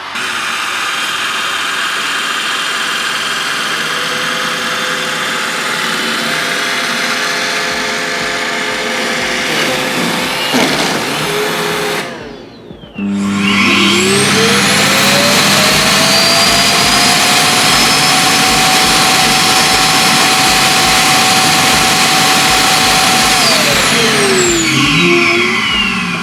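Roomba i7+ Clean Base auto-empty station's suction motor running loud as it empties the docked robot's bin. It stops briefly about halfway, then spins up again with a rising whine, holds steady and winds down near the end.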